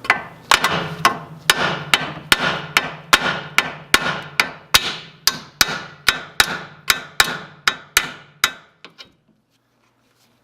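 Hammer striking metal to knock a BMW E30's tie rod end out of the steering knuckle: a steady run of about thirty ringing blows, around three a second, that stops about eight and a half seconds in.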